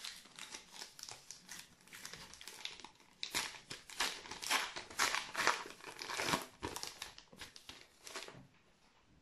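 Wrapper of a Topps Match Attax trading-card pack crinkling and tearing as it is pulled open by hand, in irregular crackles that are busiest in the middle and die away near the end.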